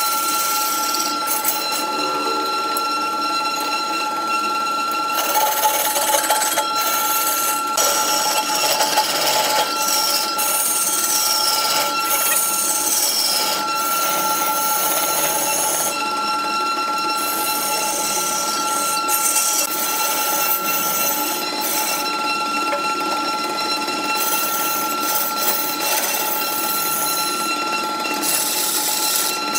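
Large wood lathe running with a steady whine while a hand-held cutting tool is pressed into the end of a spinning log, scraping the wood with high, gliding squeals in places.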